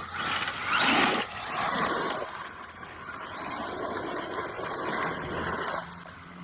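Arma Mojave EXB RC truck driving over rough ground: a rising motor whine as it accelerates about a second in, then a rough rush of electric drive and tyres on dirt and gravel that stops near the end.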